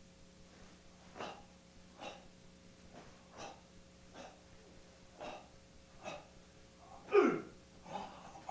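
A karate practitioner's sharp, forced exhalations, one with each technique of the kata, about one a second. About seven seconds in comes a much louder voiced exhale whose pitch falls.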